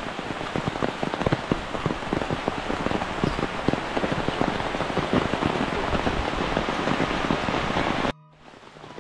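Heavy rain falling: a dense steady hiss with many close individual drop hits. It cuts off suddenly about eight seconds in and comes back gradually.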